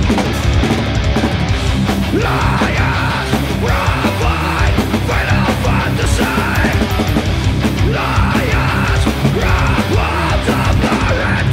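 Doom metal band playing live: heavily distorted guitars and bass with drums and cymbals. Harsh shouted vocals come in about two seconds in, in short repeated phrases.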